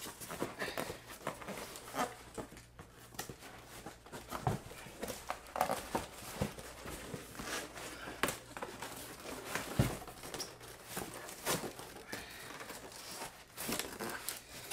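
Large cardboard monitor box being handled and wrestled open by hand: irregular rustling, scraping and knocks of cardboard, with some crinkling and tearing.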